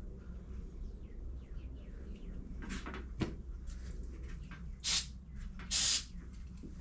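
Small clicks and clunks from handling metal brake parts on a workbench, with two short bursts of hiss about five and six seconds in, the second the longer and louder, and a sharp knock at the very end.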